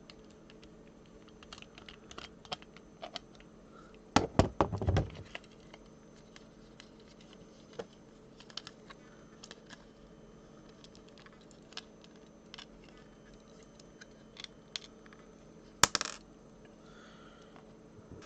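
Small clicks, taps and scrapes of a screwdriver, a small screw and a die-cast toy car being handled while the car is unscrewed from its plastic base. A quick clatter of louder knocks comes about four seconds in, and a single sharp click near the end.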